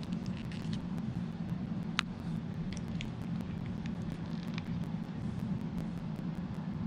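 Steady low background hum with a few faint small clicks, the sharpest about two seconds in.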